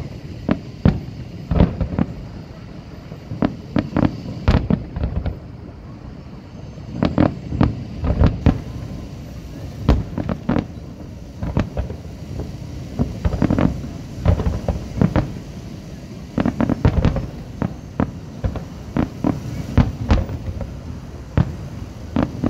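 Fireworks display: aerial shells bursting in an irregular run of sharp bangs, some coming in quick clusters.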